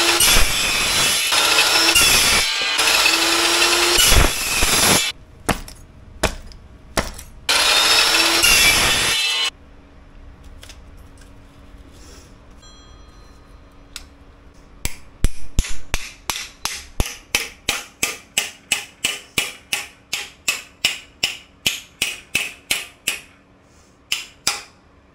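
Evolution metal-cutting chop saw running and cutting steel, in several long bursts over the first nine seconds. After a pause, a hammer taps steadily on steel held in a bench vise, about three strikes a second, bending the bracket.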